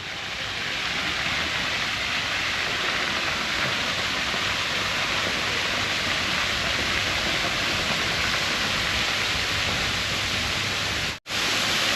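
Steady rushing and splashing of water from a pool-side water playground's sprays and fountains, cutting out for an instant near the end.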